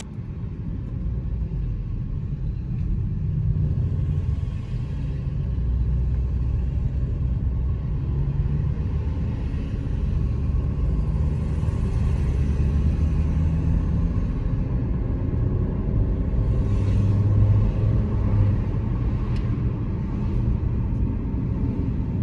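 Toyota C-HR running with a steady low rumble, which swells briefly about three-quarters of the way through.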